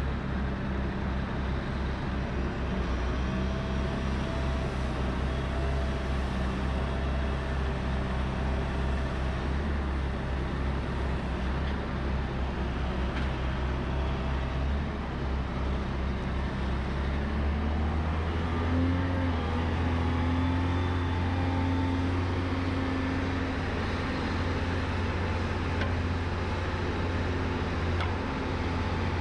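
Heavy diesel engine of the Volvo A30C articulated hauler running at a steady idle. About two-thirds of the way through, the engine note rises and holds at a higher, steadier speed.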